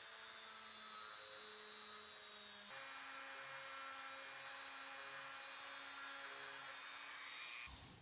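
Dremel 3000 rotary tool running steadily with a small bit in tupelo wood, boring and widening an eye socket for a glass eye. Its pitch steps up a little under three seconds in, and the motor stops just before the end.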